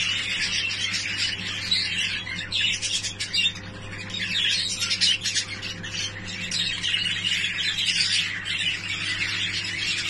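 A room full of budgerigars chattering and chirping continuously, many birds at once, over a steady low hum.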